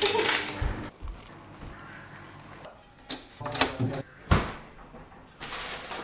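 Side-by-side fridge's door dispenser running briefly into a mug, a short rush of about a second. Then come a few kitchen clicks and a thump, and another short rush near the end.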